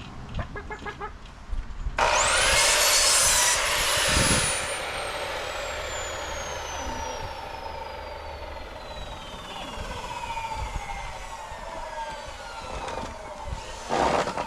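Power saw starting up with a rising whine and cutting through a wood board for about a second and a half, then the blade coasting down after release, its whine falling slowly in pitch for about ten seconds. A short burst of noise comes near the end.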